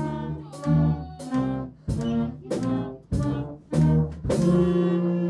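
Elementary-school beginner band playing a run of short notes together at an even beat of roughly one every 0.6 s, brass prominent, ending on a longer held note.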